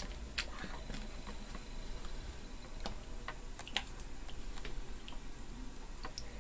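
Light, scattered clicks and ticks, a few of them louder, as the brass headwork of a tap is handled and lowered into a glass of hydrochloric acid to dissolve its limescale.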